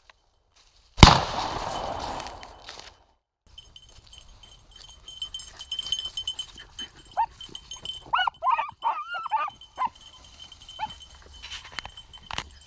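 A 20-gauge shotgun shot about a second in, its report ringing off over a couple of seconds. Then beagles baying on a rabbit chase, a run of short bawls in the middle, with a sharp crack near the end.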